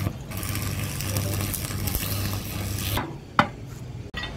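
Electric arc welding on a truck tie rod end: a steady crackling sizzle with a low electrical hum, which cuts off sharply about three seconds in as the arc is broken. A single sharp click follows a moment later.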